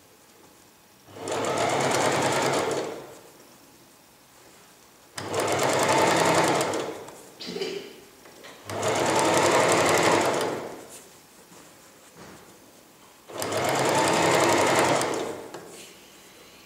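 Electric sewing machine stitching bias binding onto fabric in four runs of about two seconds each, stopping between them.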